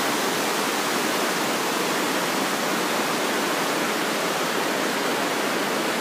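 Himalayan mountain river rushing steadily: a loud, even wash of water noise with no change in it.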